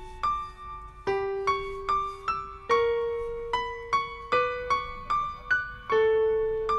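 Background piano music: a gentle melody of single notes struck roughly twice a second, each ringing and fading, over lower notes held for a second or two.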